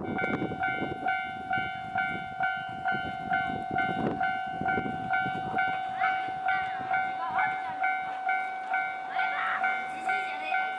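Japanese railway level-crossing warning bell ringing its electronic ding at an even pace of a little over two strikes a second. A low rumble, typical of a train passing, runs under it through the first half.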